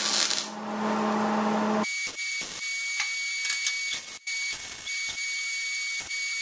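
MIG welder arc on steel sheet metal, laying plug welds. About two seconds in, a steady hum with hiss gives way to a dense, steady crackle with short breaks between welds.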